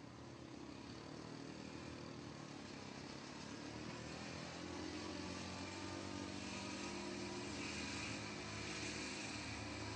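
A vehicle engine running steadily, growing gradually louder.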